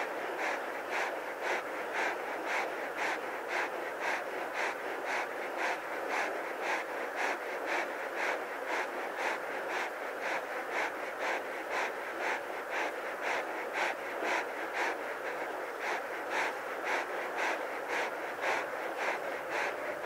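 Close-up lion panting in a steady, even rhythm of about two breaths a second: a lion resting in the heat and panting to cool off.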